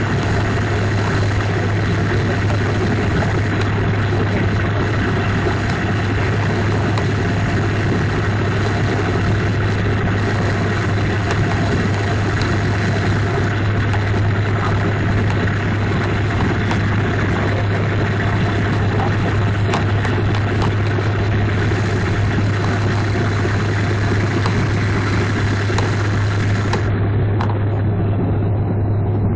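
Steady cabin noise of a jet airliner on approach with its landing gear down: a constant low drone under an even hiss of engines and rushing air.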